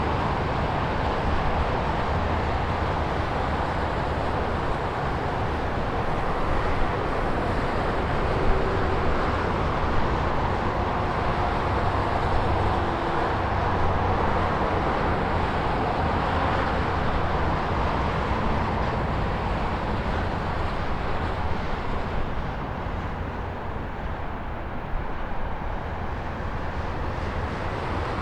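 Highway traffic: a continuous rush of cars passing at speed, tyre and engine noise swelling and easing gently as vehicles go by, over a low rumble.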